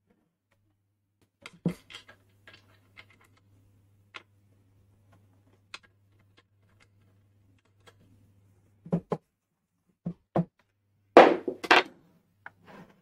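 Small metallic clicks and ticks as a nut and washer are turned down by hand on the centre bolt of a painted wooden turntable base, followed by a few knocks and, near the end, a louder scuffing clatter as hands take hold of the board.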